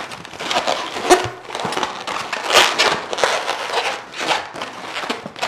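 Inflated latex modelling balloons squeaking and rubbing against each other in irregular strokes as they are twisted and wedged together by hand.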